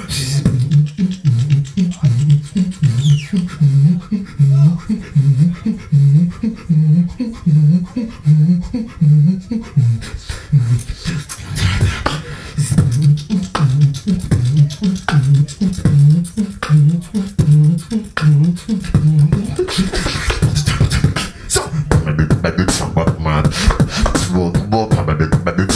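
Beatboxing into a handheld microphone over a PA: a pulsing vocal bass line at about two pulses a second with kick and snare sounds, turning to denser sharp clicks and snares from about ten seconds in.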